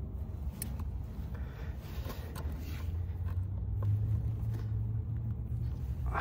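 Faint clicks and rubbing as spring-clamp pliers set hose clamps on the rubber coolant hoses of a transmission cooler, over a steady low rumble.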